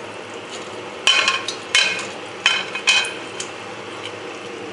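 Kitchenware clatter as fried tilapia pieces are tipped from a plate into a metal pot of curry and turned with a wooden spoon: about five short knocks and scrapes in quick succession, over a steady low hiss.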